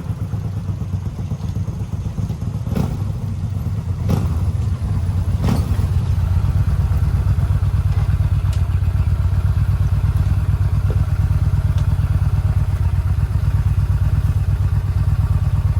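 V-twin motorcycle engine idling steadily with a lumpy, pulsing beat, a few sharp clicks over it in the first several seconds. It grows louder about four seconds in and then holds steady.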